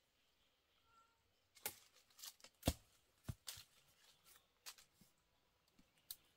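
Irregular close handling sounds: light rustles and clicks starting about a second and a half in, with two sharper knocks near the middle.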